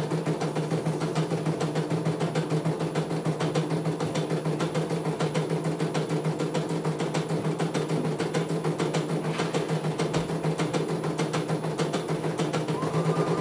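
CNY E900 computerised embroidery machine stitching a design: the needle bar runs at a fast, even rhythm over a steady motor hum. A higher steady whine joins near the end.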